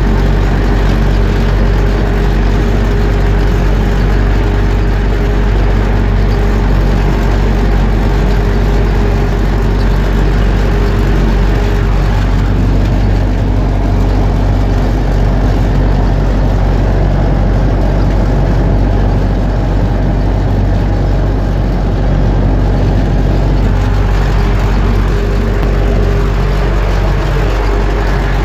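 UTB Universal 650 tractor's four-cylinder diesel engine running steadily and loudly while pulling a mounted crop sprayer, heard from the tractor seat.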